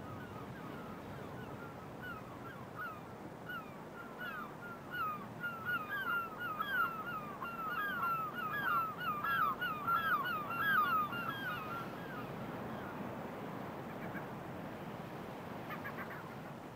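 Gulls calling: many short repeated calls, sparse at first, building to a dense chorus in the middle and dying away after about twelve seconds, over a steady background hiss.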